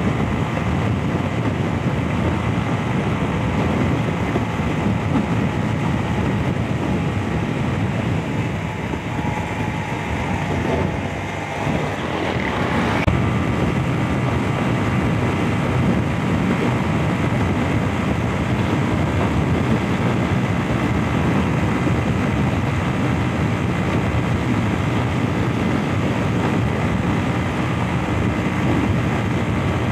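Honda CG 125's single-cylinder four-stroke engine running steadily at cruising speed, mixed with wind buffeting a helmet-mounted microphone. The engine note dips briefly about eleven seconds in, then picks up again.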